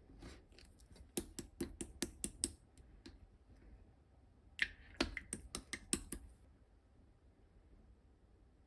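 Slime being pressed and stretched by hand, giving two quick runs of sharp clicking pops, the second starting about four and a half seconds in.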